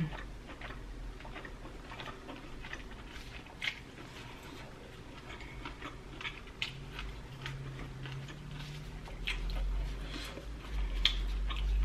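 Close-miked chewing and wet mouth smacks from eating curry seafood boil, with scattered soft clicks from gloved hands picking through the food and lifting a piece of corn on the cob. A low rumble swells near the end.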